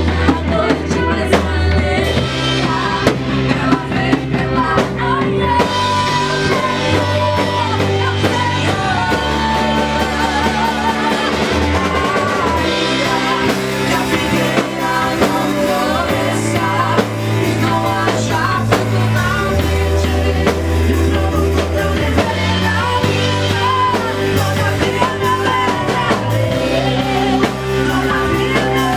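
Christian worship band playing live: a singer's voice over a drum kit, with held low bass notes that change every couple of seconds.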